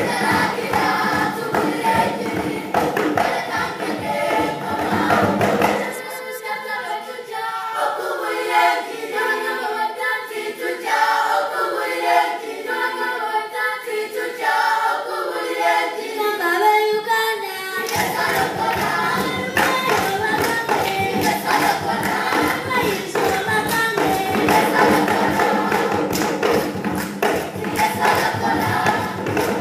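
African children's choir singing an upbeat song over a rhythmic beat. About six seconds in the beat drops out and the choir sings unaccompanied for about twelve seconds, then the beat returns.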